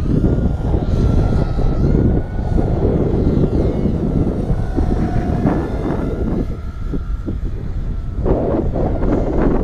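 Eachine Falcon 210 racing quadcopter's motors and propellers whining on a 4S battery, the pitch sliding up and down with the throttle. A loud low rumble of wind on the microphone sits under it.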